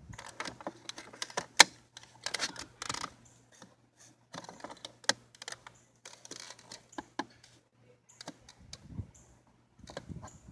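Irregular plastic clicks and rustling as a car door trim panel and its fittings are worked loose by hand, with one sharp click about one and a half seconds in. A faint steady hum runs underneath.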